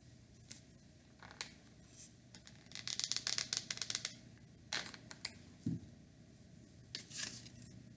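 Hands working small wooden birdhouse pieces and a glue bottle: scattered scratchy rubs and light taps, with a fast run of scratchy clicks about three seconds in.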